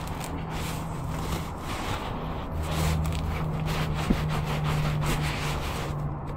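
Packing foam and cardboard rubbing and scraping as a box is unpacked by hand, over a steady low hum. There is a sharp tick about four seconds in.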